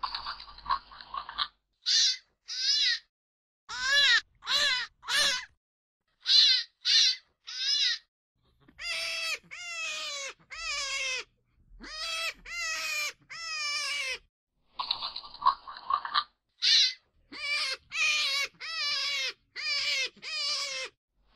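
A series of short pitched animal calls, each falling slightly in pitch, coming in groups of two to four with brief silent gaps; a longer drawn-out call opens the run and another starts near the end.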